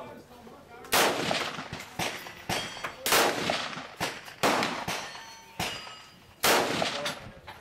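AR-15 rifle with a Bison Armory 6.8 SPC upper fired four times in slow semi-automatic fire, shots about one and a half to two seconds apart, each report ringing on briefly. A few fainter sharp reports fall between the loud shots.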